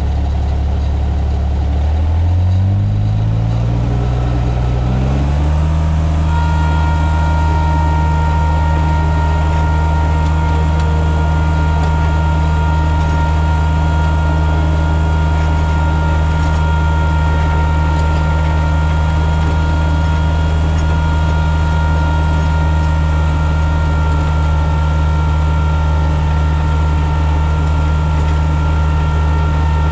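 John Deere 1445's three-cylinder diesel engine revving up about two seconds in, then running steadily at high speed. A steady high whine joins about six seconds in and runs with it.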